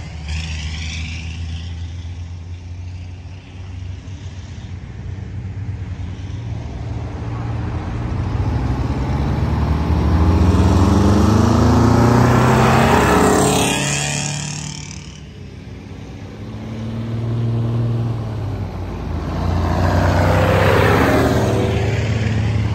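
Antique Brockway trucks' engines running as they drive past one after another. A tractor unit grows loud and passes about halfway through, its engine note sliding down as it goes by, then fades; another truck approaches near the end.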